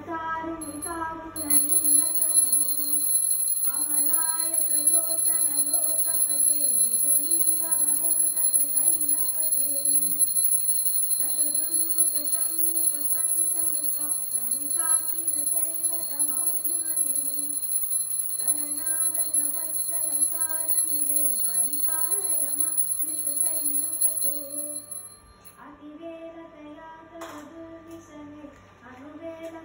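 A woman and a child singing a Hindu devotional aarti song together. A small hand bell rings steadily from about a second and a half in until near the end, when it stops and the singing goes on more quietly.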